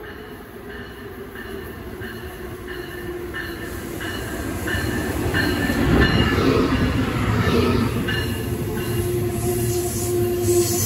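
An Amtrak electric locomotive and its passenger cars pulling into a station, growing louder until the locomotive passes about six seconds in, then the rumble and clatter of the cars' wheels. The locomotive's bell rings steadily throughout, about three strokes every two seconds.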